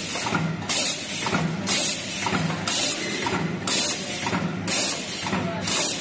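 Background music with a steady drum beat: a sharp hit about once a second over a kick drum about twice a second.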